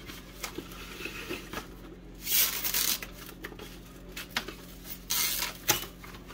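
Plastic crinkling and rustling in two short spells, about two and about five seconds in, with light clicks and knocks between: a cut tomato being wrapped up in plastic.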